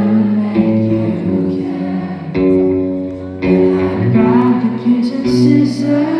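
Live concert performance of a slow pop song, with guitar and singing and sustained notes throughout, heard as loud music in a large hall.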